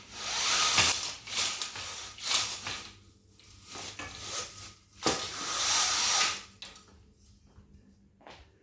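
Several loud bursts of rushing hiss, each lasting a second or two, dying down for the last couple of seconds.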